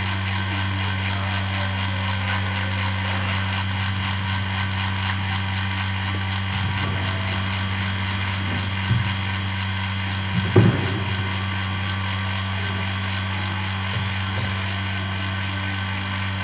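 Vacuum drying oven setup running under vacuum while heating, a steady low machine hum. A short knock about ten seconds in.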